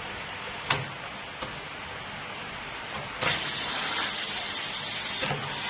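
Bag-in-Box pouch filling machine at work: two sharp clicks about a second in as the pouch spout is seated in the filling head, then a loud hiss from the filling head lasting about two seconds that starts and stops sharply, over a steady background hiss.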